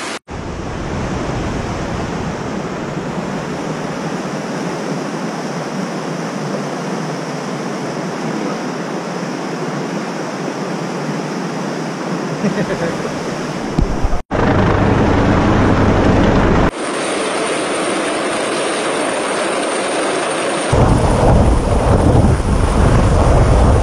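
A steady rushing noise for the first half. Then, after a cut, an air ambulance helicopter hovers overhead during a hoist rescue. Its rotor noise and downwash buffet the microphone, loudest in the last few seconds.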